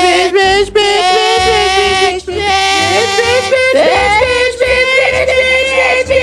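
Human voices yowling in long, wavering drawn-out tones in imitation of cats squaring off before a fight, with a rising glide into a higher held wail about three and a half seconds in.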